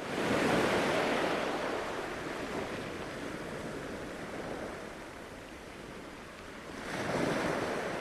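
Sea water washing and surging, a steady rush that swells near the start, eases off, and swells again about seven seconds in.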